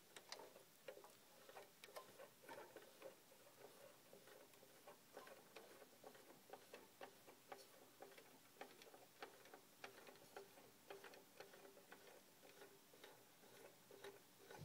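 Faint, irregular plastic clicking, several clicks a second, from a Nylint toy fire engine's aerial ladder mechanism as the ladder is raised.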